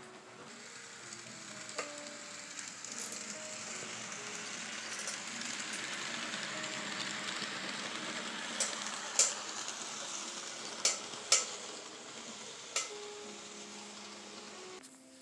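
N scale model train running past at close range: a steady hiss of wheels on track and motor that builds to its loudest about halfway through, with a few sharp clicks.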